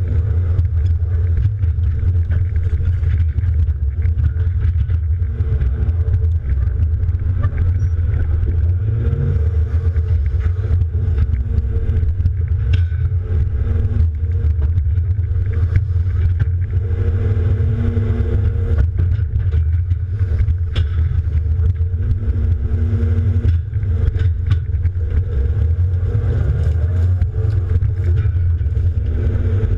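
John Deere 270D LC excavator's diesel engine running under load as heard from the cab, with a tone in its note strengthening and fading every few seconds as the machine works. A few sharp knocks come through now and then.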